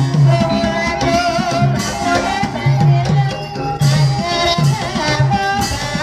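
Gamelan music for an ebeg horse-trance dance: a drum beats short groups of low strokes while bronze kettle gongs ring a sustained melody, with a wavering voice singing above at times.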